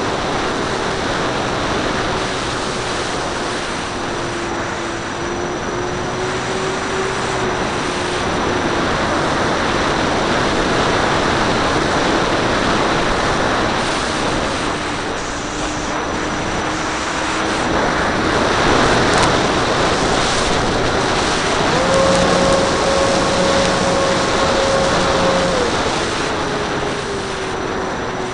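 Radio-controlled model airplane in flight, heard from a camera on board: a steady motor-and-propeller whine over loud wind rush. The whine drifts a little in pitch with the throttle, then steps up higher for a few seconds near the end before dropping back.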